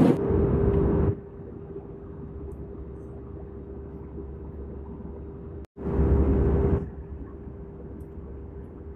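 Steady engine and airflow drone inside a jet airliner's cabin during the climb, with a constant hum running through it. It is louder for about a second at the start, then drops. After a brief break a little past the middle it is loud again for about a second before settling back.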